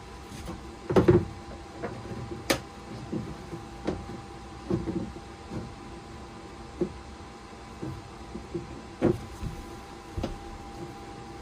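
Scattered knocks and clunks of hand work on a mounting base, the loudest about a second in, over a faint steady hum.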